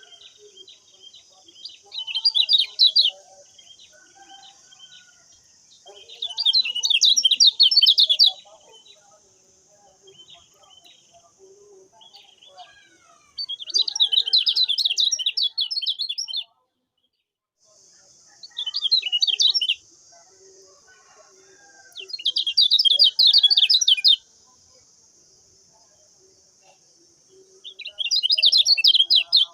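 Kecial kuning white-eye singing in six separate bursts of rapid, high chirping notes, each lasting one to three seconds, over a steady high hiss. The sound cuts out completely for about a second roughly two-thirds of the way through.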